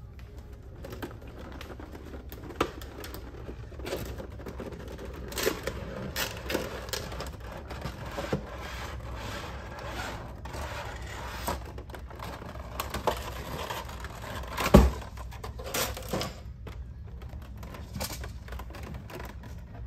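Cardboard and plastic packaging being handled and pulled open: irregular scraping, rubbing and sharp clicks, with one loud thump about three-quarters of the way through.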